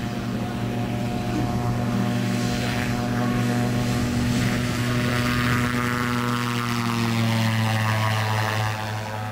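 Small single-engine pusher-propeller amphibian plane taking off at full power, growing louder as it comes toward and past close by, its note dropping and fading near the end as it goes by.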